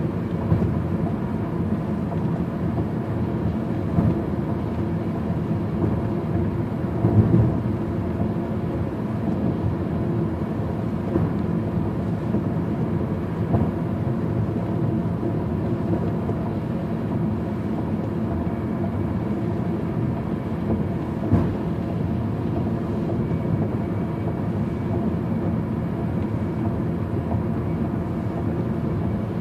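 Steady road and engine noise heard from inside a moving car, with a few brief thumps, the loudest about seven seconds in.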